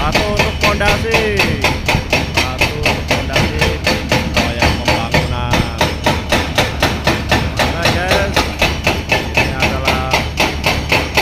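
Excavator-mounted hydraulic rock breaker hammering rock in a fast, steady rhythm, about four blows a second.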